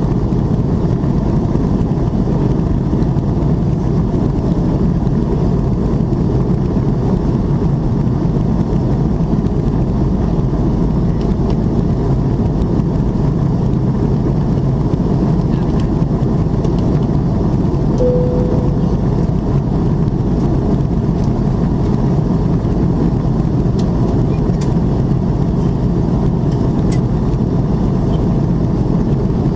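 Steady cabin noise inside an Airbus A330-300 in its climb, the engines at climb power and the rush of airflow heard together as one low, even rumble. A short faint tone sounds about two-thirds of the way through.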